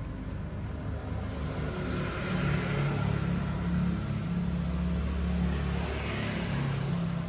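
A low, steady rumble that grows louder about two seconds in and eases near the end.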